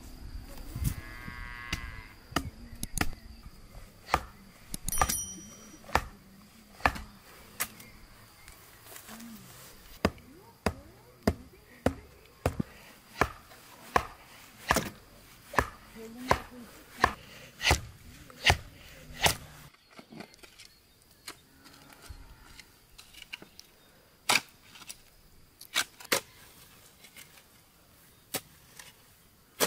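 A blade chopping at a wooden branch: sharp strokes, at first scattered and then in a steady run of about one and a half a second, with fewer knocks near the end.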